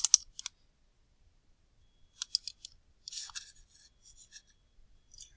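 Computer mouse and keyboard clicks: a few sharp clicks at the start, then scattered clusters of clicks from about two seconds in.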